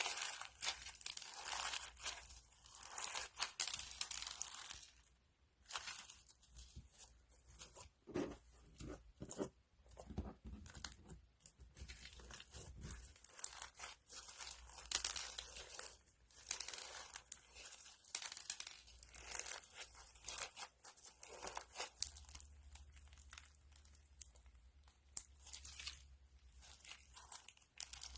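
Crunchy slime being pressed and squeezed by hand, crackling and popping in dense, irregular bursts. A faint low hum joins near the end.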